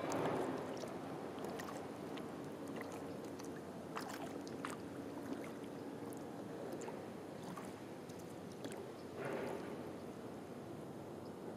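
Kayak paddle dipping into calm water, with swishing and dripping and scattered small clicks. Two louder strokes come just after the start and about nine seconds in.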